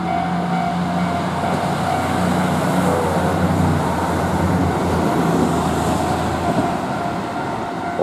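JR Rapid Mie diesel railcar passing directly below, its engine and wheels giving a steady low hum and rumble. Level-crossing warning bells keep ringing as a steady high tone, heard most plainly at the start and near the end.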